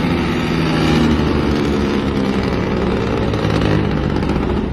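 Heavy diesel truck engine running with a steady, even engine note.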